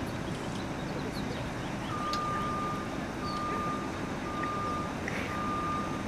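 A vehicle's reversing alarm beeping at one steady pitch, about one beep a second, starting about two seconds in, over a steady low outdoor rumble.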